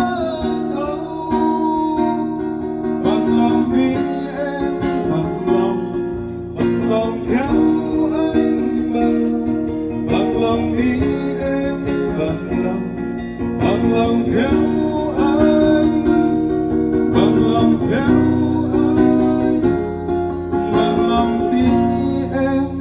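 Song music with a plucked acoustic guitar over a steady bass line, played loud through a sound system.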